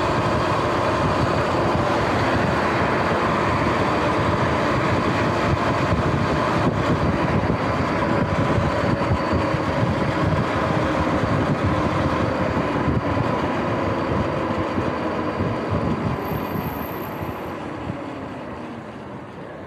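Sur-Ron X electric dirt bike riding on pavement: a steady rush of wind and tyre noise under a whine of several tones. The whine slides down in pitch as the bike slows over the last few seconds. The rider takes this running noise for worn front wheel hub bearings.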